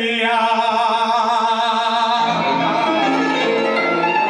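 A voice singing a long, operatic held note with a wide vibrato, moving to a different held note about two seconds in.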